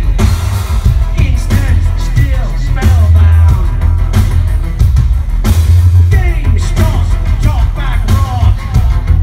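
Industrial rock band playing live through a big PA, loud, with a heavy bass-and-drum low end, guitar and a singer's voice over it.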